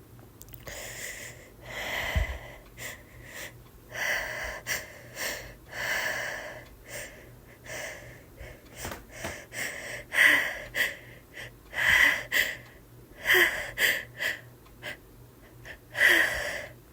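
A woman's hitching sneeze buildup from a head cold: a long run of short, catching gasps and breaths, growing louder from about ten seconds in.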